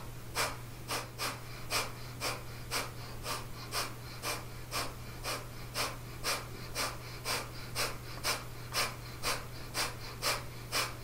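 Kapalabhati (breath of fire) breathing: a woman's short, sharp exhales forced out through the nose, about two a second in an even rhythm, each exhale driven by pulling the belly in while the inhale between happens passively.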